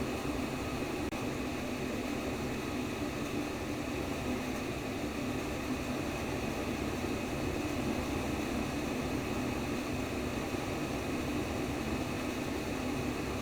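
Steady, low whooshing white noise of a simulated womb sound, even and unbroken apart from a momentary dip about a second in.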